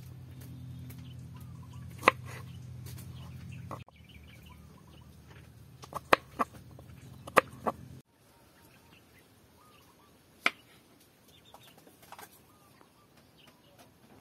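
Kitchen knife knocking sharply on a wooden chopping board as fruit is cut, a handful of separate strikes with a quick cluster of three around six seconds in. Chickens cluck faintly in the background, and a low steady hum in the first half cuts off abruptly.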